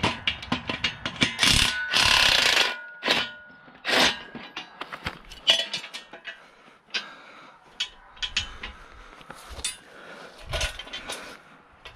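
Cordless impact driver working a bolt loose on the steel base of a folding engine hoist, with a solid burst of hammering about two seconds in. After that come scattered clanks and scrapes of the hoist's steel tubes being handled.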